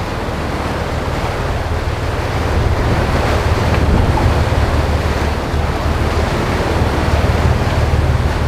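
Steady rush of a sportfishing boat underway: wake water churning and the engines running low underneath, with wind buffeting the microphone.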